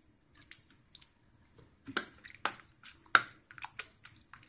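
A hand mixing sliced onion, tomato and chilli in coconut milk in a bowl: irregular wet squelches and sharp clicks, the loudest about two to three seconds in.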